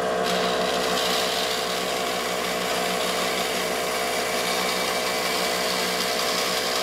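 Bandsaw running with a Starrett bimetal blade cutting through a small piece of brass. The hiss of the blade in the brass starts just after the beginning, over the steady hum of the saw's motor.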